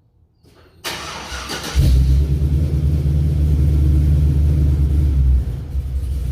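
Vehicle engine being started: the starter cranks for about a second, then the engine catches and runs steadily with a low rumble.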